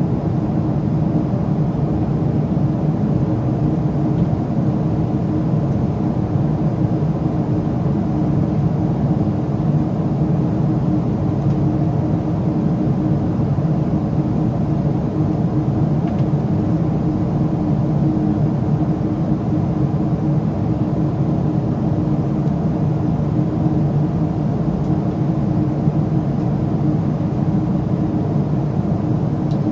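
Boeing 777-300ER cabin noise at cruise: a steady, unchanging rush of airflow and GE90-115B engine noise, with a low hum running through it.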